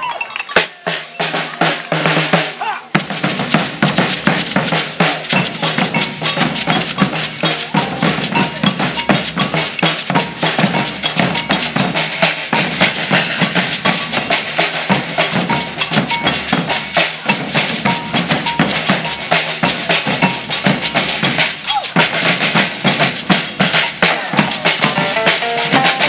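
A maracatu percussion group plays a driving rhythm on alfaia bass drums and a snare drum, with metal tube shakers, beaded gourd shakers (abê) and a double cowbell (agogô) on top. The first three seconds hold only a few sparse hits before the full group comes in.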